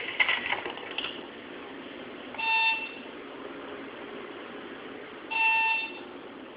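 Elevator emergency telephone's speaker giving a short electronic beep twice, about three seconds apart, each about half a second long, over a quiet hum of the open line.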